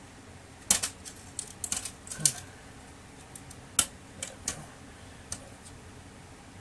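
Irregular sharp clicks and knocks of a screwdriver and of plastic and metal printer parts being handled while a circuit board is unscrewed and taken out. There are about a dozen in the first five seconds, with the loudest knocks about a second in, at about two seconds and at about four seconds.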